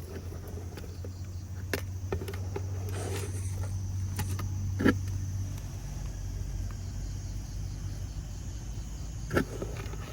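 Outdoor field ambience: a steady high insect drone over a low rumble, with three sharp taps or clicks spread through it.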